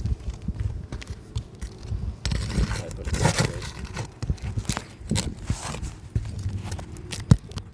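Irregular scraping, clicking and knocking of a tool worked under asphalt roof shingles to break their seal and lift them. A longer scrape comes about two to three seconds in, and one sharp click near the end.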